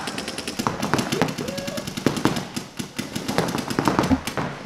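Paintball markers firing rapid strings of shots, the pops coming many to the second, with a player's shout briefly over them.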